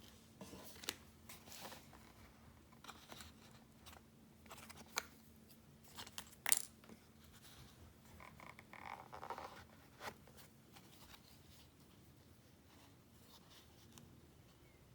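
Packaging of a wristwatch being handled during an unboxing: faint rustles and scattered light clicks and taps, with a sharper click about six and a half seconds in and a brief scraping rustle around nine seconds.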